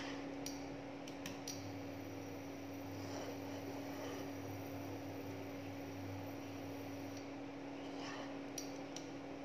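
Steady hum of an induction hob heating a frying pan, with a faint hiss of butter melting in it. A few light clicks come from chopsticks tapping the pan, about three in the first second and a half and two more near the end.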